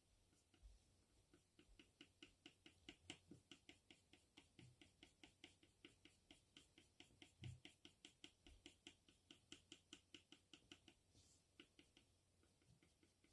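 Faint scratching of a Tombow NQ colored pencil shading on drawing paper: quick back-and-forth strokes at about four or five a second, thinning out near the end.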